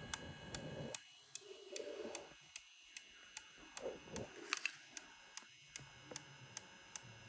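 Easythreed X1 3D printer's extruder clicking faintly and steadily, about two and a half clicks a second, as it pushes filament through toward the nozzle.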